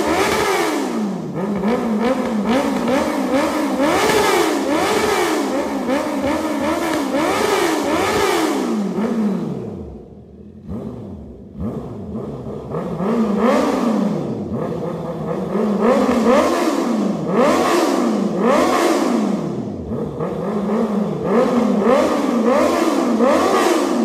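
Honda CB650R's inline-four engine, breathing through an aftermarket full exhaust system, revved over and over in neutral: quick blips that rise and fall in pitch. About ten seconds in it drops back toward idle for a couple of seconds, then the blips resume.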